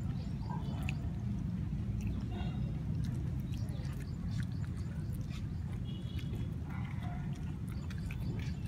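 A puppy eating boiled rice from a stainless steel bowl, with small wet chewing and smacking clicks as it mouths the food against the bowl, over a steady low rumble. A few short high chirps sound in the background.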